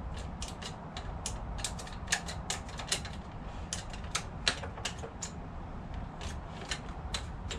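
Cutting-head angle adjuster of a Stihl HLA 65 hedge trimmer being worked by hand after repair, giving a run of sharp, irregular mechanical clicks, about three a second, as the head's pivot and locking pin are tested.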